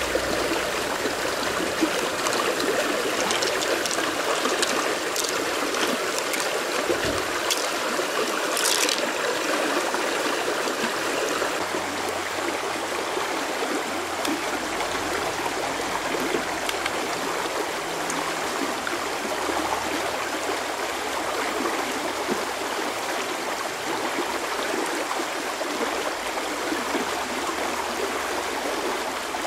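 Shallow stream rushing over rocks: a steady, even rush of water. A few faint clicks come through in the first several seconds.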